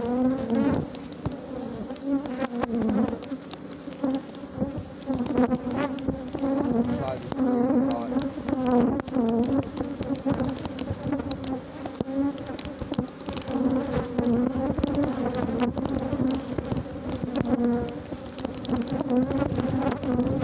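Large numbers of defensive Africanized honey bees buzzing around an opened hive, a dense steady hum whose pitch wavers up and down as bees fly close past the microphone. The loud, sustained buzz is the sign of an agitated colony defending its honey.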